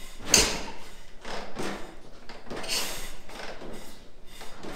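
1965 Harley-Davidson pan/shovel V-twin being kicked over by its kickstarter, about three kicks, each a short whooshing stroke. The loudest comes just after the start. The engine turns over without firing.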